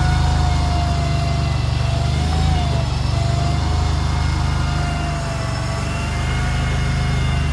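JQ400 mini skid steer's small engine running steadily under working load, with a steady whine over it that wavers slightly in pitch.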